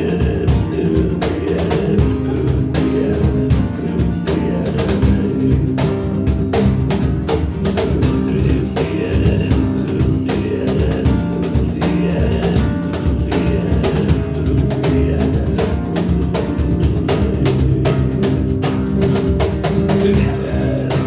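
Instrumental band passage with guitar and a drum kit keeping a steady beat; no vocals.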